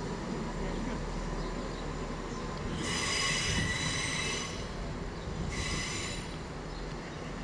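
Class 159 diesel multiple unit moving off over curved track with its wheels squealing twice: a long high-pitched squeal about three seconds in and a shorter one about two seconds later. Both sit over the low rumble of its diesel engines.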